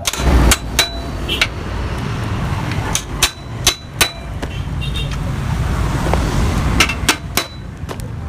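Hammer striking the steel of a motorcycle exhaust: about a dozen sharp metallic blows in irregular groups, some leaving a brief ring, over a steady low hum.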